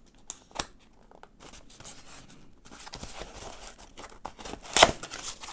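A small cardboard box being opened by hand: scattered scrapes and taps of cardboard, then one short, loud rip near the end.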